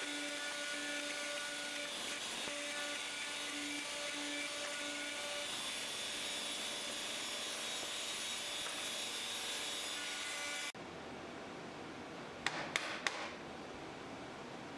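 X-Carve CNC router spindle running and milling MDF: a steady whine over the noise of the cut, which stops abruptly about eleven seconds in. Then three sharp clicks in quick succession as a chisel cuts the MDF holding tabs.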